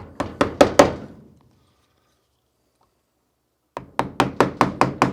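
A mallet tapping a number 7 sweep, 14 mm carving gouge into wood in two quick runs of sharp knocks, about five a second, with a pause of nearly three seconds between them.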